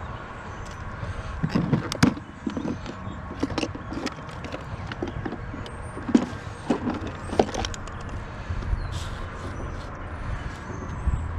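Clicks and knocks of a plastic tackle box being unlatched, opened and rummaged through, then a tape measure being pulled out, over a steady low rumble.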